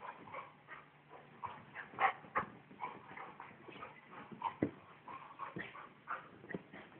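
A yellow Labrador and a Pomeranian play-wrestling, giving short, irregular yips and whimpers, loudest about two seconds in and again about halfway through.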